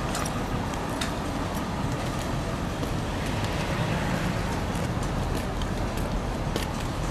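Steady street traffic noise, with a few light knocks scattered through it.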